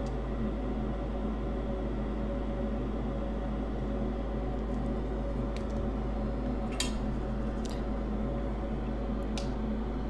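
A steady electrical hum, with a few faint sharp clicks in the second half.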